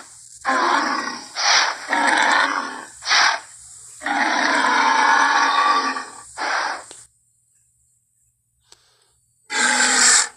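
Triceratops dinosaur sound effects: a run of short grunts and rough roars, one longer roar lasting about two seconds, then a pause and a final short roar near the end.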